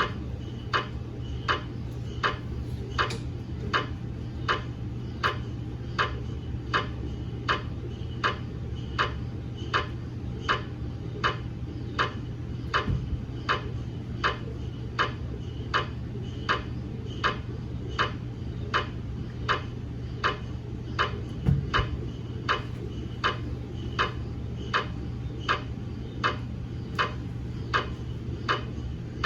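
GE MRI scanner's gradient coils knocking at an even pace, about three knocks every two seconds, over a steady low hum, while it runs a daily quality-assurance scan on a head phantom.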